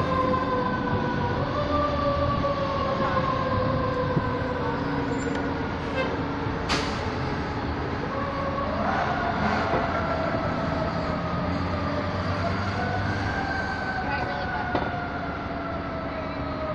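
Fire engine siren wailing, its pitch sliding slowly down and then winding back up twice, fading gradually as the apparatus moves away, over a steady lower drone. A brief sharp click about seven seconds in.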